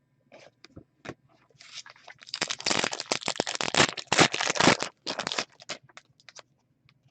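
Trading-card packaging and cards being handled: a few light clicks, then about two seconds of loud crinkling and tearing about two and a half seconds in, trailing off into scattered clicks.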